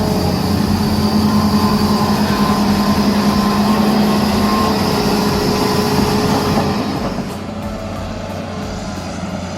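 Heavy diesel engine running steadily with a low hum, typical of an excavator working nearby; it drops in level about seven seconds in.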